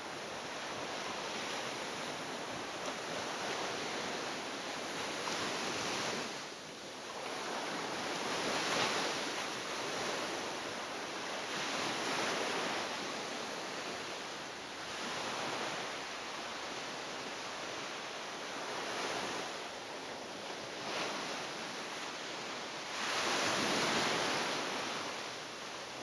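Sea waves breaking and washing up the shore. The rushing water rises and falls every three to four seconds as each wave comes in, and the loudest wave comes near the end.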